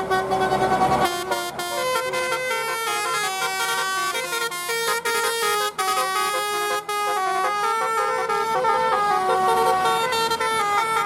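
Bus 'telolet' horn (Basuri multi-tone horn) playing a tune of steady notes that step from pitch to pitch. A loud rush of noise sounds over the first second.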